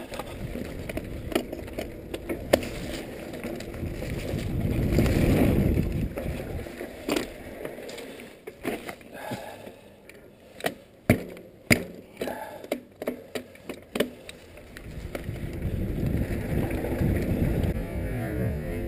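Mountain bike running down a rough trail, filmed from an onboard action camera: wind rushing over the microphone, swelling twice as speed builds. In between comes a run of sharp clacks and rattles from the bike jolting over the ground.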